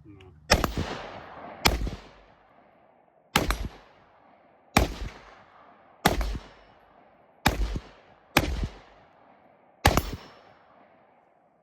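Eight rifle shots from an AR-15 in 5.56 fitted with a Super Safety trigger, fired one at a time with gaps of about one to one and a half seconds, each ringing out briefly after the crack.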